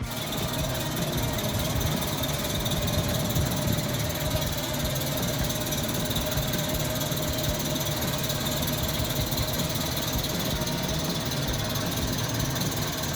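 Engine of a 1996 Toyota Kijang Super running steadily at idle after an engine-bay cleaning. It starts abruptly and keeps an even, rumbling note.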